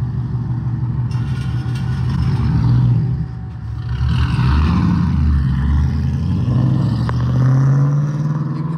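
Nissan 240SX's swapped-in 5.3-litre LS V8 revving as the car accelerates away, the engine note climbing, dropping briefly about three seconds in, then climbing again.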